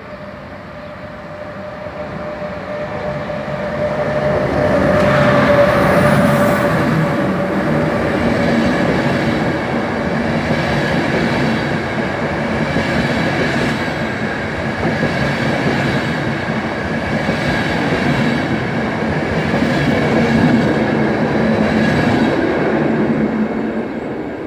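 Locomotive-hauled Intercity train approaching and running through the station. The rolling noise of wheels on rail builds over the first few seconds, and a steady whine fades about six seconds in as the front passes. The long rake of coaches then rolls steadily by, easing off near the end.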